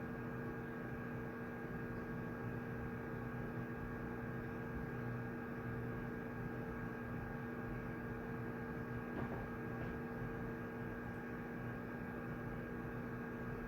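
Steady background hum of a shared study room: an even, unchanging hum with a faint tick about nine seconds in.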